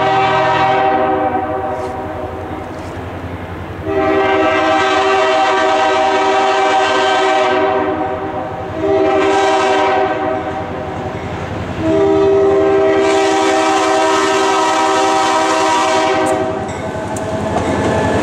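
EMD GP9 diesel locomotive's air horn sounding the grade-crossing signal, long, long, short, long: the first blast stops about a second in, and the last long blast ends a couple of seconds before the end. The locomotive then comes past with engine and wheel noise.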